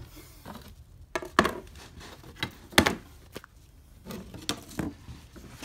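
Plastic Bakelite-style window spacers being pulled out of a railcar window frame: a series of sharp clicks and knocks of hard plastic against the frame and glass, the loudest about three seconds in.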